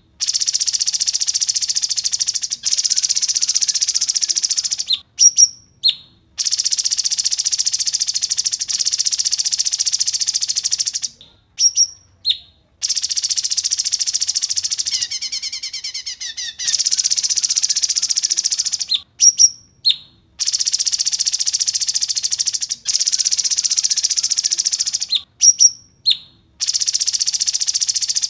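Edited bird-song training recording of a songbird. Long blocks of rapid, high-pitched trilling, each a few seconds long, alternate with short, loud, sharp whistled notes. The trills start and stop abruptly, as in a cut and looped track.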